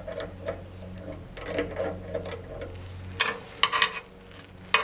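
Metal clicks and rubbing of a bandsaw's blade-guide bearing being shifted and set by hand, with a few sharp clicks in the second half over a steady low hum.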